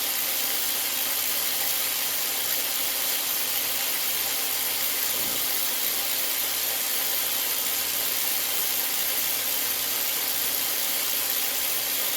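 Walmart cordless ratchet's electric motor and gearing running free at full speed, held on for a tachometer speed test: a steady, unchanging whine.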